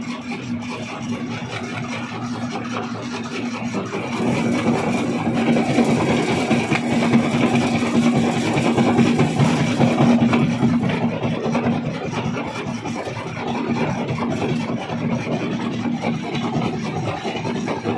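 Rock crusher machine running with a steady hum under a dense, rough clatter, growing louder and rougher from about four seconds in to about eleven seconds in.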